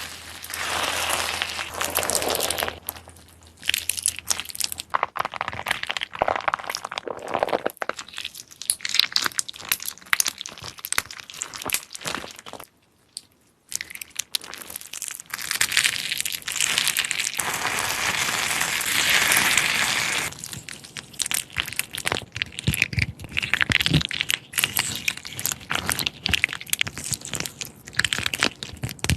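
Hands squeezing and poking crunchy slime: dense crunching and crackling pops, broken off briefly near the middle.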